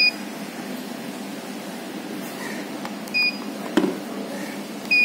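Keypad beeps of a Palmtec handheld billing machine: three short, identical high-pitched beeps as keys are pressed, one at the start, one about three seconds in and one near the end. A single sharp click comes between the second and third beeps.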